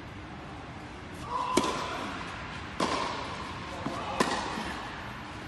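Tennis rally on a clay court: the ball struck by rackets and bouncing, three sharp knocks roughly a second and a half apart, echoing in an enclosed hall.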